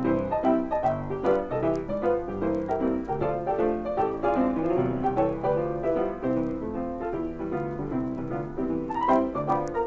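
Piano music: a quick, continuous run of short notes.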